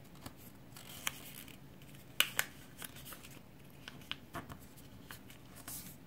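A square of colored origami paper being folded and creased by hand: scattered crisp paper crackles and rustles, the sharpest pair of snaps about two seconds in.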